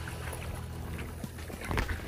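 Kayak paddling into a headwind: wind rushing over the microphone and water splashing around the boat, with a few sharper splashes in the second half.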